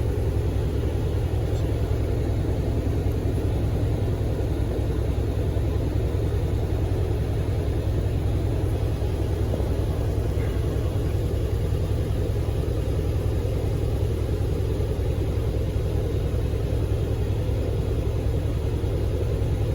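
Dodge Durango's 5.7 Hemi V8 idling, a steady low rumble with no revving.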